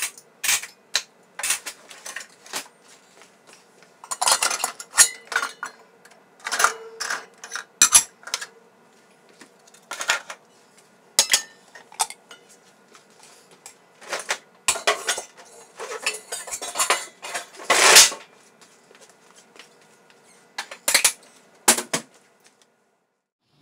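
Dishes and bowls clinking and clattering as the bottom rack of a dishwasher is emptied, in irregular clusters of sharp clinks that stop near the end.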